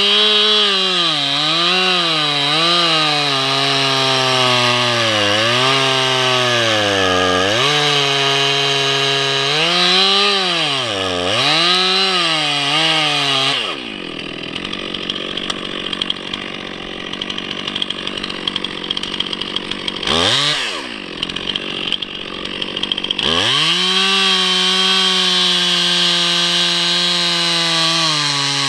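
Stihl MS 362 two-stroke chainsaw cutting through a pine trunk at full throttle, its pitch dipping and recovering as the chain bogs in the wood. About 14 s in the throttle is released and the saw idles unevenly for around nine seconds, with one quick blip of revs. It then goes back to full throttle for the next cut.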